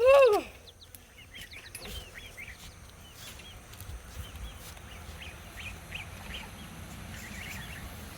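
One loud, short call from an adult bird right at the start, then a box of Cornish Cross meat-bird chicks peeping with many small, high chirps.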